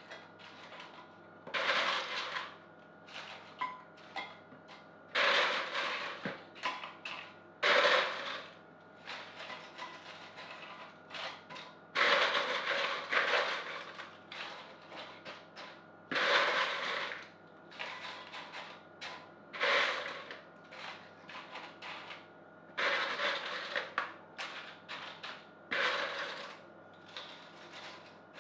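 Tortilla chips crackling and crunching as handfuls are scooped from a bowl and laid into a baking dish, in irregular bursts every few seconds.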